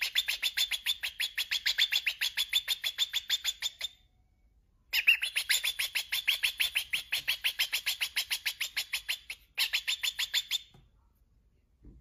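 Cockatiel chirping: a fast, even run of short high notes, about ten a second, in bouts of several seconds that break off about four seconds in and again for about a second near the end.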